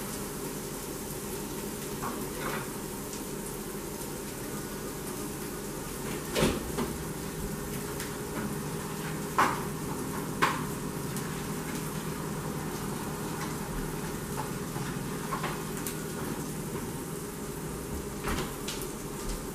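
Food frying in a pan on a gas stove, a steady sizzle, with a few sharp knocks and clatters of kitchen handling, the clearest about six, nine and ten seconds in.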